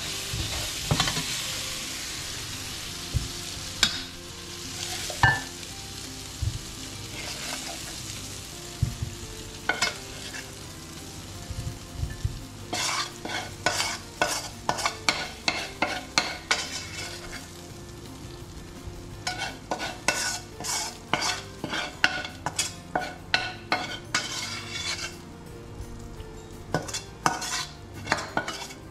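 Potatoes sizzling in a stainless steel frying pan as they are stirred, the sizzle dying away over the first several seconds with the hob switched off. Then a metal spoon scrapes and knocks against the pan in quick runs of clicks as the potatoes and sauce are spooned out.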